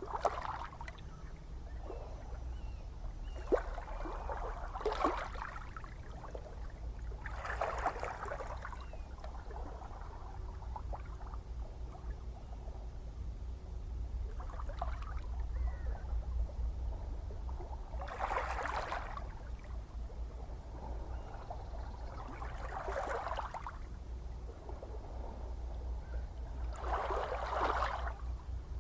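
Gentle ocean waves washing in, a soft swell of water noise every three to five seconds over a steady low rumble of surf.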